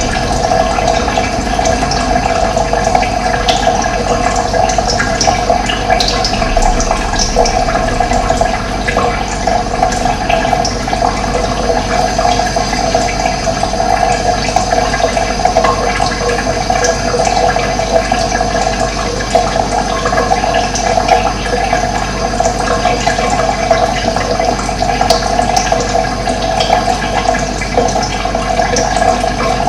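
Running water rushing steadily, with occasional short, faint bird chirps above it.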